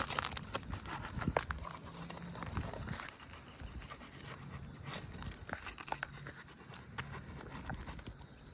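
Irregular clicks, scrapes and crinkling of asphalt shingles being handled and lifted on a roof to get at the nails.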